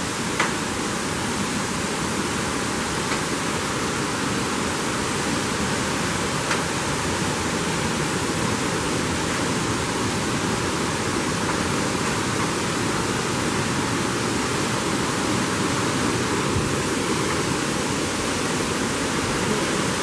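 Steady rushing of a waterfall, an even wash of falling water that holds at one level throughout.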